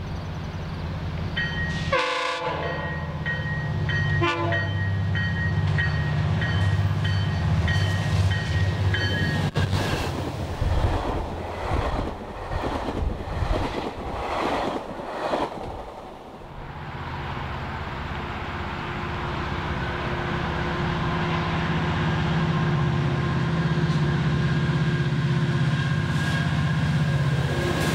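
GO Transit diesel commuter trains passing close by. First a locomotive's engine drone under an evenly repeating ringing, like a bell. Then the rush and rhythmic clatter of bilevel coaches going by. Then a second locomotive's engine drone building as it comes into a station, with held tones over it that drop in pitch as it passes near the end.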